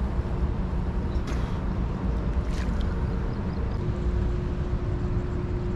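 Boat engine running steadily: a low rumble with a held hum that shifts slightly about four seconds in.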